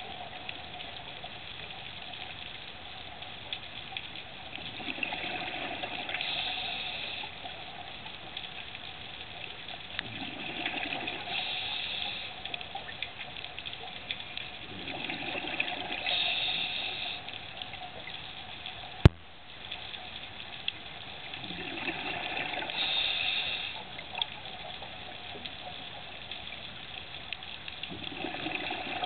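Underwater scuba breathing through a regulator, repeating about every five to six seconds: a low bubbling rumble of the exhale and a hiss of the inhale. A single sharp click about two-thirds of the way through.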